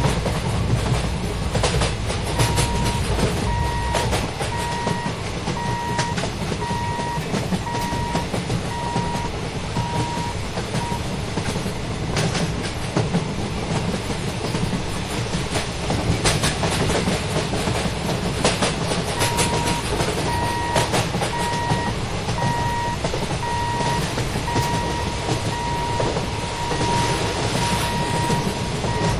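An express passenger train running past at speed, its coaches rumbling steadily and its wheels clattering over the rail joints. A steady electronic beeping repeats at an even pace through two spells, the first starting a couple of seconds in and the second starting near two-thirds of the way through.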